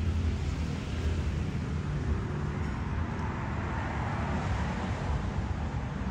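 Steady low rumble and hiss of outdoor background noise, swelling a little around the middle.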